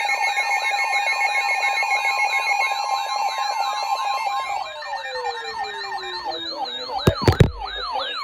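Several electronic alarm sirens warble together at different rates, the sound of an incoming emergency alert. Partway through, they glide down in pitch and drop out one after another, and a few loud knocks come about seven seconds in.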